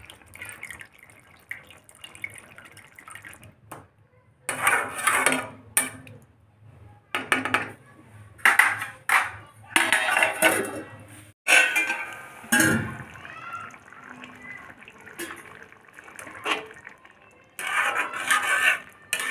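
Steel cookware clattering: a steel plate set on a kadai as a lid, a ringing clang about halfway through, and a spatula scraping and stirring the curry near the end.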